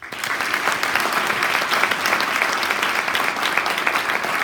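Audience applauding, loud and sustained, starting suddenly right after an award winner's name is announced.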